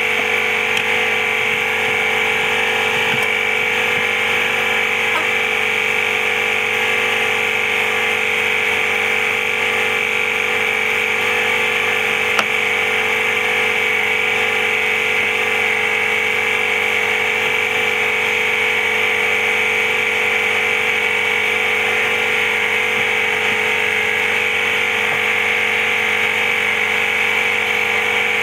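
A small electric motor whirring steadily with a high whine, with one short click about twelve seconds in.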